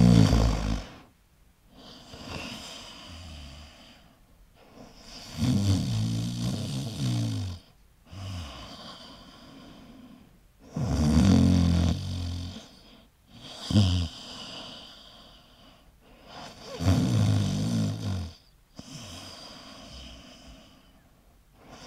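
A person snoring in a slow, regular rhythm: a loud, buzzy snore roughly every five and a half seconds, four in all, with quieter breaths between.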